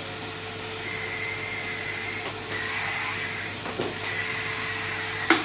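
Vacuum cleaner motor running steadily, with a knock almost four seconds in and a sharper one near the end.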